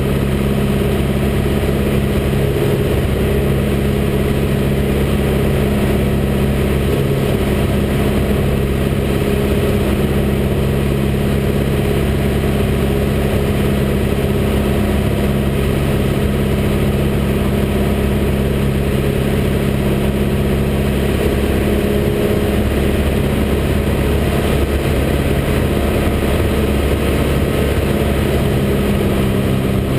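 Light aircraft's piston engine and propeller running steadily in level flight, a constant drone heard from inside the cockpit.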